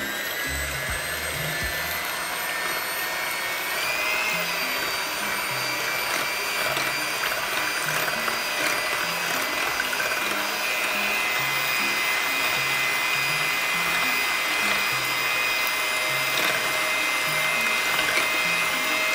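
Electric hand mixer running at a steady speed with a constant motor whine, beating eggs, sugar, vanilla and milk into a thin batter in a glass bowl; the whine lifts slightly about four seconds in.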